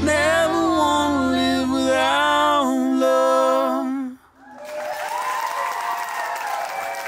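Voices holding the song's last sung note over a low sustained bass note; the bass stops about three seconds in and the voices about a second later. Then a crowd breaks into applause and cheering.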